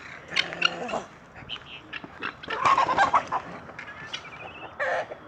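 Farmyard animals calling: a string of short calls and clucks, the loudest a pitched call about two and a half seconds in, and a short warbling call near the end.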